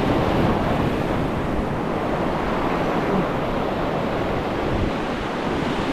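Sea surf breaking and washing over shore rocks: a continuous, steady rush of foaming water.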